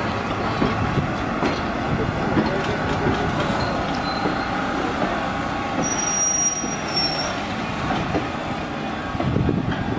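Heritage passenger coach and steel caboose rolling slowly past on their steel wheels, a steady rumble and clatter. A brief high-pitched wheel squeal comes a little past halfway, with a fainter one just before it.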